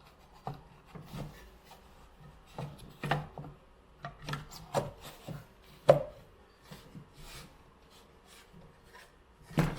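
Scattered clicks, knocks and rubbing as soundbar parts are handled and a part is fitted back into the Sony SA-CT60 soundbar's housing, with one sharper knock about six seconds in.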